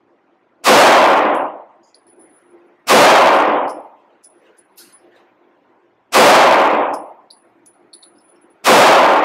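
Four 9mm pistol shots from a Nighthawk Custom Fire Hawk with an integrated compensator, fired slowly, about two to three seconds apart. Each loud report is followed by about a second of echo from the indoor range.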